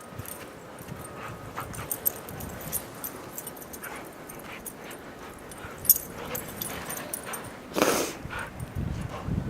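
Siberian huskies whining and yipping in short bursts, with one louder outburst about eight seconds in.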